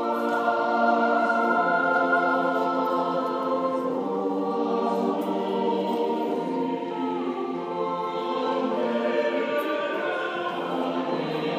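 A choir singing slow, sustained chords, each held for a second or more before moving to the next.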